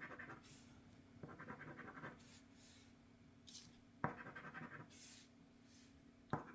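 Scratching the coating off a crossword scratch-off lottery ticket: faint scraping in short bursts, the longest about a second long, starting just after a second in and again about four seconds in.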